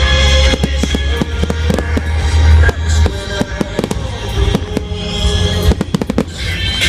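Fireworks going off in quick succession, many sharp bangs and crackles one after another, over music playing at the same time.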